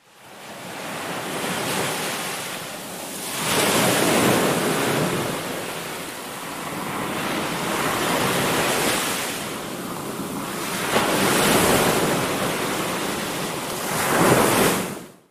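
Small waves breaking on a sandy beach, the surf rushing and swelling louder about four times.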